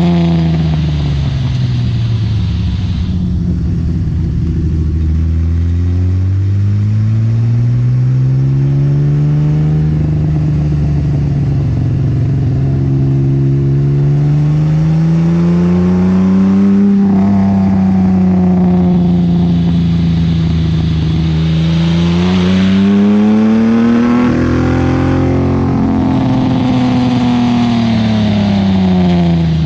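1977 Datsun 280Z's custom-built L28 straight-six running through an Abarth muffler. Its pitch falls over the first few seconds, climbs slowly for about ten seconds, dips briefly, climbs again, then falls near the end.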